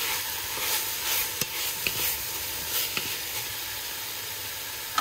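Tomatoes, celery and seasonings sizzling as they sauté in an enamelled cast-iron pot. A wooden spoon stirs and scrapes a few times in the first three seconds.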